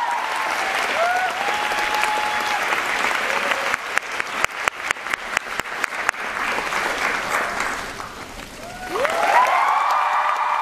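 Theatre audience applauding, with shrill cheers and screams rising above the clapping. About four seconds in, a run of loud, close hand claps comes at about five a second for two seconds. The cheering swells again near the end.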